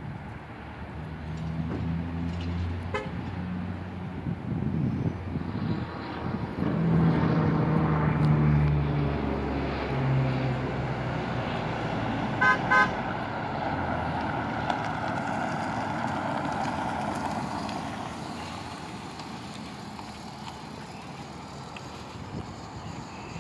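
A 2005 Chevrolet Uplander minivan's V6 engine pulls the van up the street, its pitch rising and falling as it accelerates. About twelve seconds in come two short horn toots. Then the van passes close with engine and tyre noise and slows, the sound fading toward the end.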